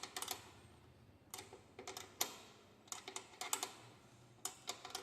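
Light metallic clicks and clinks in short clusters, as a number 10 spanner is fitted on and turned against the screws of the indicator swivel to tighten them.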